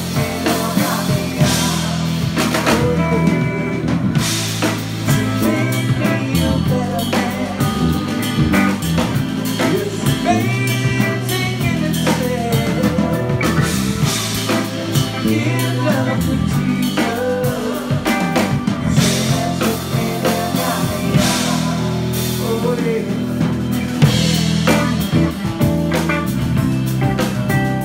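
Live rock band playing through a PA: drum kit, guitars and keyboard.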